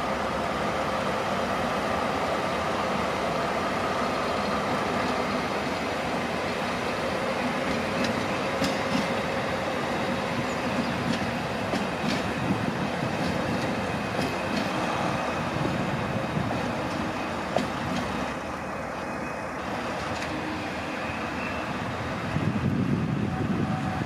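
SNCF Infra yellow diesel shunting locomotives running at a station, a steady engine and rail noise with a few light clicks near the middle.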